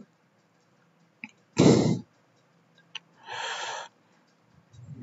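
A man's short throat noise about a second and a half in, then a breathy exhale a second and a half later, with a couple of faint clicks between them.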